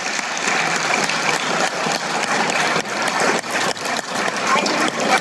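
A small group of people clapping, a fast irregular patter of close hand claps.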